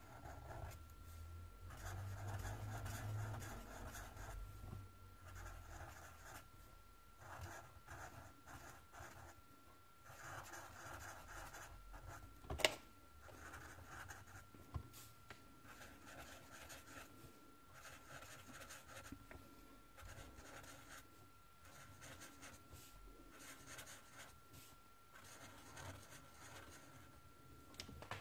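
Faint scratching and rubbing of a Sharpie marker tip on paper in short, repeated strokes as areas are filled in black, with a single sharp click about halfway through.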